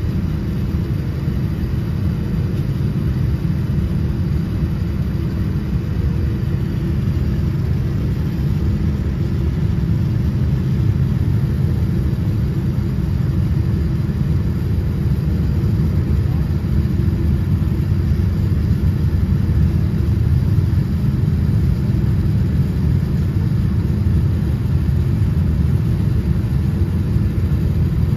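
Steady low rumble inside the cabin of a Boeing 787-10 airliner, growing slightly louder as the aircraft begins to move back from the gate.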